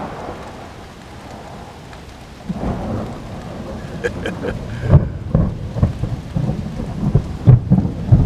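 Thunder from a close lightning strike, a bit scary, over steady rain. A fading rumble gives way about two and a half seconds in to a new roll of thunder that builds into loud sharp cracks near the middle and again near the end.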